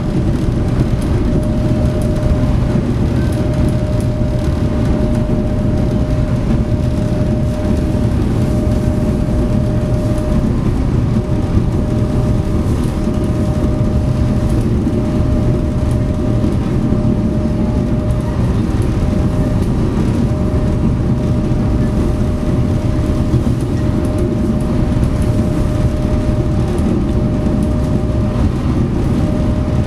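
SeaBus passenger ferry under way, its engines and drive running steadily: a continuous low rumble with a constant whine above it.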